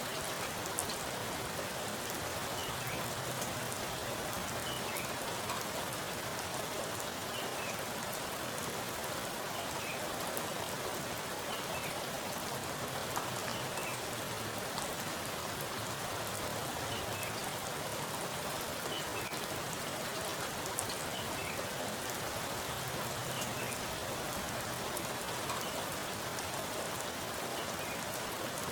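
Heavy rain falling steadily onto a pool of still water, a dense hiss of drops splashing on the surface, with scattered louder individual drips.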